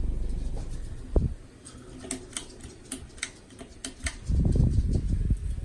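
Harbor Breeze Typhoon ceiling fan's airflow rumbling on the microphone, fading about a second in. A thump follows, then a run of light irregular clicks, and a second low rumble of air near the end.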